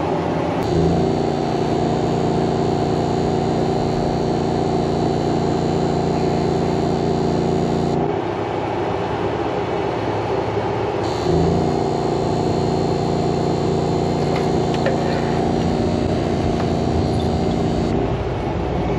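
An electrofishing boat's machinery runs with a steady drone. A steady hum switches on abruptly about a second in, cuts off about eight seconds in, then comes back near eleven seconds for about another seven seconds. This is typical of the electrofishing gear being switched on and off.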